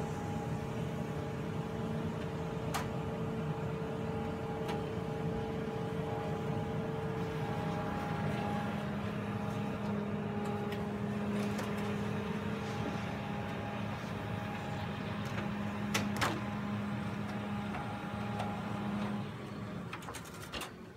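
Toshiba e-STUDIO 5506AC colour copier running steadily while it prints and feeds out a long banner sheet, a hum of steady tones whose pitch shifts partway through, with a few sharp clicks. The machine winds down and stops near the end.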